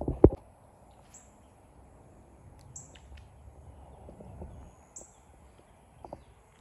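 Two sharp knocks right at the start, then short high bird chirps that fall in pitch, repeating every second or two over a steady high-pitched whine and faint outdoor background.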